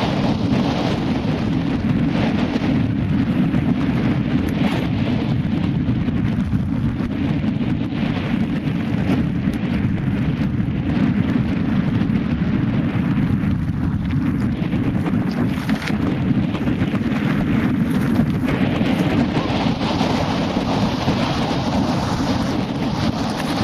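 Wind buffeting the microphone as it moves fast down a rough gravel track: a steady, heavy low rumble, with a fainter rattle and crunch of tyres over stones.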